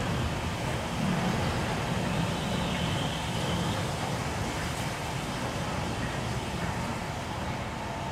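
Steam locomotive working slowly away while hauling goods wagons: a steady rumble and hiss, with steam blowing from the cylinders, that fades gradually as it draws off.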